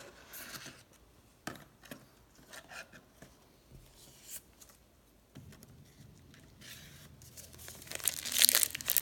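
Trading-card pack wrapper being crinkled and torn open. Faint rustles and taps come first, then loud crinkling and tearing starts about eight seconds in.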